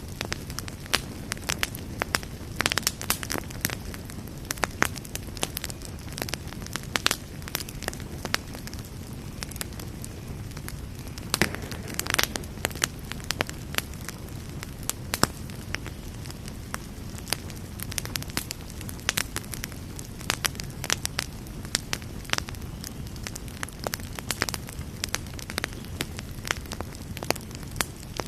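Campfire burning with a steady low rumble and frequent irregular crackles and pops of burning wood.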